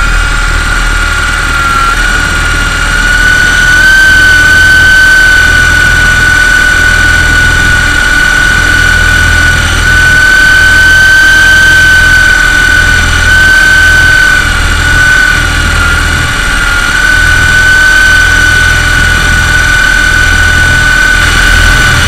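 MJX F639 coaxial RC helicopter's electric motors and rotors whining steadily, heard up close from its onboard camera, the pitch dipping and rising slightly with throttle, over a low fluctuating rumble.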